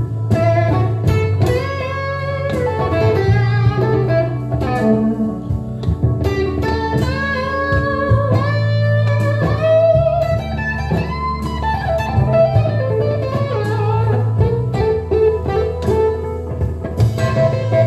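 Telecaster electric guitar playing an improvised blues lead, single notes with string bends sliding up and down in pitch. A steady low bass line runs underneath, moving to a new note every couple of seconds.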